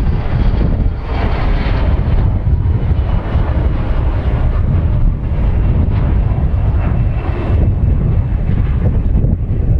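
Jet engines of an American Eagle Bombardier CRJ regional jet climbing out after takeoff: a steady rumble with wind buffeting the microphone. The higher part of the engine noise thins out toward the end as the jet pulls away.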